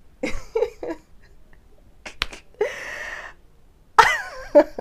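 A woman's short breathy laughs and exhales, with a sharp click about two seconds in. The loudest laugh comes near the end.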